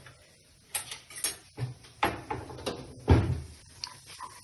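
A stirring utensil scraping and knocking against a pan as besan is sautéed in ghee: several separate strokes, the loudest about three seconds in.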